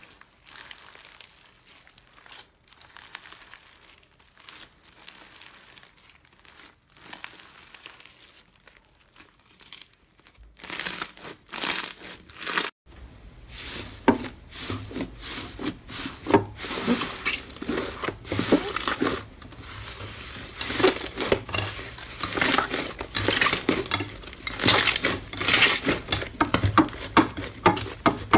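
Slime being handled, stretched and squeezed: soft, faint crinkling at first, then after a short break much louder dense clicks and crackles.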